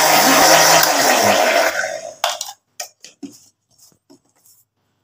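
Electric mixer-grinder blending banana and milk into batter, running steadily, then switched off about two seconds in and winding down. A few light clinks and knocks of dishes follow.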